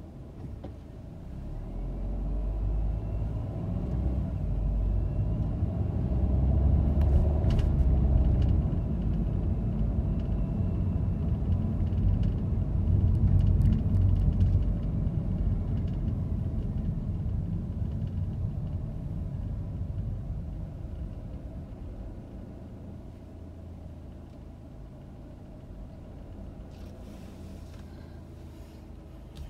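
Low rumble of a car's engine and tyres as it pulls away and drives on, swelling from about a second in, loudest in the middle, then dying down as the car slows to a stop.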